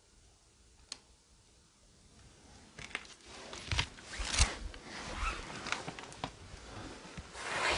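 Rustling and crunching of someone moving among broken wooden boards and debris, with irregular crackles and clicks from about three seconds in. Before that it is near silence apart from a single sharp click about a second in.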